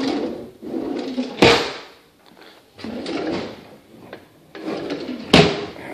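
Wooden kitchen cabinet drawer sliding open and stopping with a knock about a second and a half in, then sliding again and shutting with a louder knock near the end.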